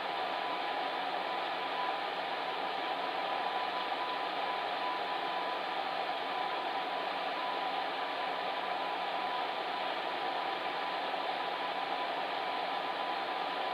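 Fan heater running steadily: an even rush of blown air with a faint steady hum under it.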